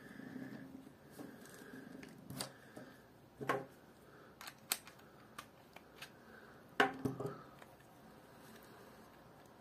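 Faint handling noise from a baitcasting reel being taken apart: small clicks and knocks as the handle and its metal retainer plate are lifted off and the parts tap together. The loudest knock comes about seven seconds in, after which it goes quiet.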